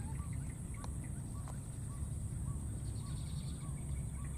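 Baby macaque giving short, faint squeaky calls, about two a second, over a steady high-pitched drone and a low rumble.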